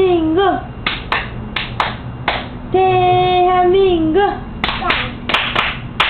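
Hand claps in two runs of several quick claps, each following a long note sung and held on one pitch that bends at its end.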